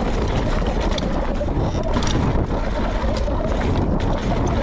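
Wind rushing over the camera microphone, with a mountain bike's tyres and frame rattling over a rocky singletrack descent.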